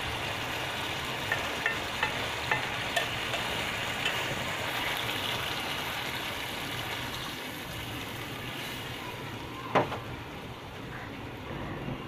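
Rohu fish curry sizzling in a kadai over a gas flame. A metal spatula taps against the pan several times in the first few seconds, water is poured into the curry partway through, and there is one sharp knock near the end.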